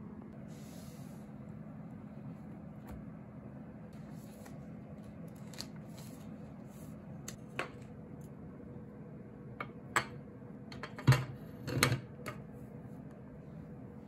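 Small clicks, taps and knocks of things being handled on a wooden desk, including a tablet being set into a stand, with a cluster of louder knocks about ten to twelve seconds in. A steady low hum of room tone lies under them.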